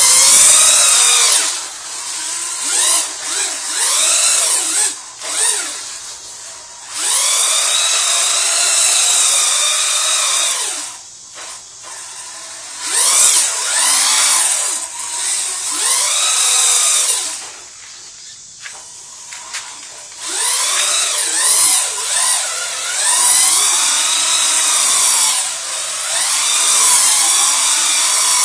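Electric motor of a Duratrax Evader RC truck whining up and down in pitch with bursts of throttle as it spins donuts, wheels spinning on wet concrete. The whine drops away in short lulls about eleven seconds in and again around eighteen seconds.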